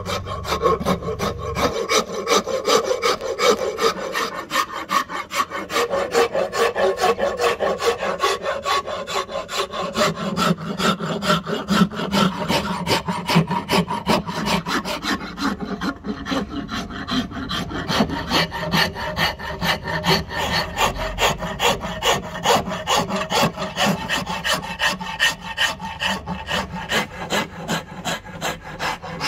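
Rasp filing a wooden hatchet handle to shape, in quick, even back-and-forth strokes that keep up steadily.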